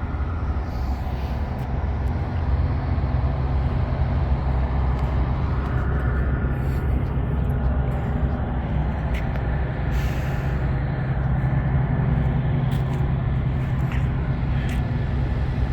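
Komatsu PC138US excavator's diesel engine running steadily at an even pitch, with a few faint clicks and a short hiss about ten seconds in.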